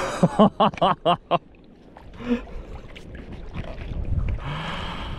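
A man laughing in a quick run of five or six short "ha"s, then, near the end, a breathy exhale.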